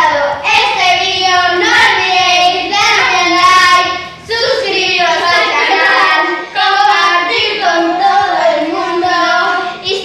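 Young girls singing a song together, without instruments.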